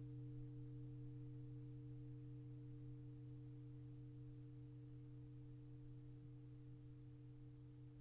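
Handmade 24-inch high-carbon steel plate gong ringing on in its long decay: a faint, low hum of a few steady tones, slowly fading.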